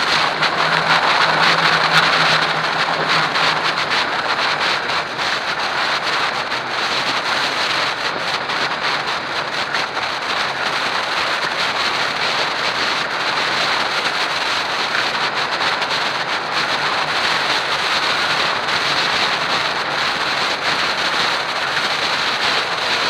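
Steady rush of wind over a hang glider's wing-mounted camera microphone in flight, an even loud buffeting noise.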